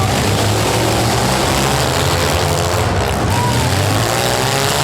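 Compact demolition derby cars' engines running and revving together, a steady loud drone with pitch rising near the end.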